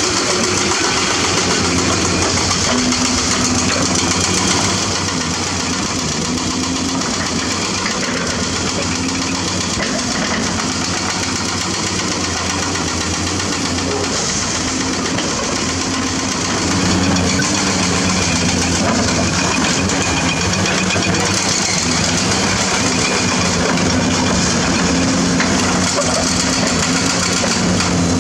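Diesel engine of a 50-ton Zoomlion ZE490EK-10 ripper excavator working under load, its note rising and falling as the hydraulics drag the ripper shank through limestone. It gets somewhat louder about two-thirds of the way in.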